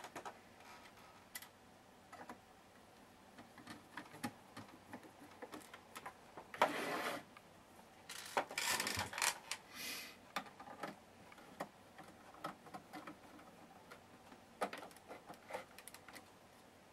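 Faint, irregular small clicks and taps of a screwdriver and screws being handled on the open metal chassis of a radio receiver, with a few short scraping rustles about seven and nine seconds in.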